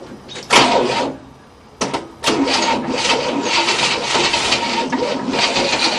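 Starter motor cranking the 1967 Cadillac's 429 V8, an engine that has sat unstarted for about 30 years: a short burst about half a second in, then from about two seconds a steady rhythmic cranking with a constant whine. The engine does not catch.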